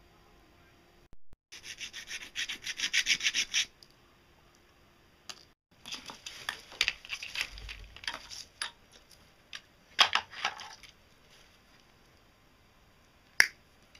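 Quick rasping strokes of rubbing and scraping on a coil of stiff black wire being worked by hand and with pliers, in three bursts, followed by a single sharp click near the end.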